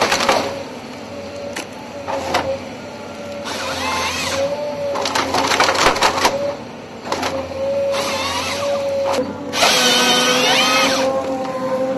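Harvester head on a tracked excavator working a felled pine trunk: a steady hydraulic whine under repeated bursts of motor whine that rise and fall in pitch as the feed rollers drive the trunk, with sharp cracks of branches snapping off about midway.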